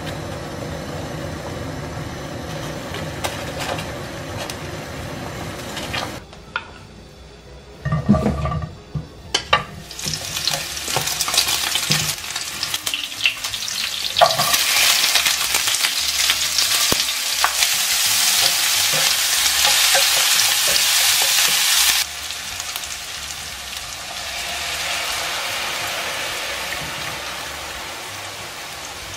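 Cubes of slab bacon sizzling and spitting in a frying pan as they are stirred, a loud hiss that stops abruptly about two-thirds of the way through. Before it comes a steady bubbling of water in a steel pot and a few knocks. After it, a cream sauce simmers with a softer hiss that fades.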